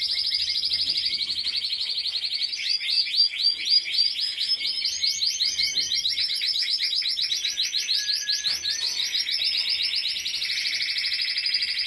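Timbrado canary singing: a long run of fast repeated trill notes, shifting to a lower, smoother rolling trill near the end.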